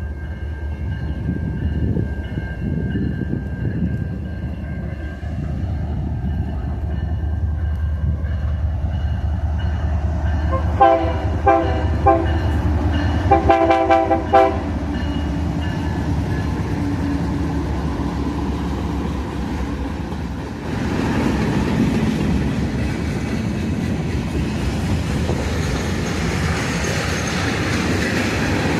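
GE Dash-9 diesel locomotive rumbling while its multi-chime air horn sounds three short blasts about 11 seconds in, then a longer blast a second later. About 21 seconds in the rumble grows louder and fuller.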